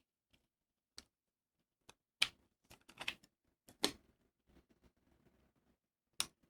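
Hands handling recording gear and its packaging: irregular sharp clicks and taps with short bursts of crinkly rustling, the loudest about two seconds in, near four seconds and near the end.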